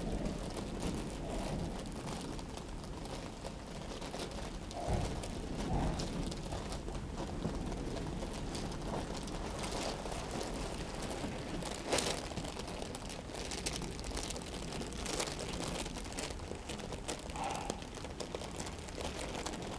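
Faint rustling and crinkling of a plush pet cave as kittens shift about inside it, with scattered small crackles and one sharper crackle about twelve seconds in.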